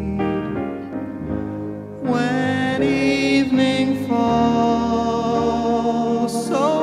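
Background music: a slow ballad with piano-like notes, a fuller sustained melody with a singing voice coming in about two seconds in.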